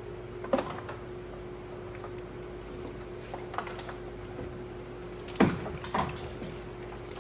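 A few separate knocks and clanks from hand work while battery trays are bolted onto a truck frame, the loudest about five and a half seconds in, over a steady hum.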